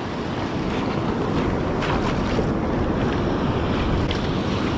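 Ocean surf washing on the beach with wind buffeting the microphone, a steady rushing noise.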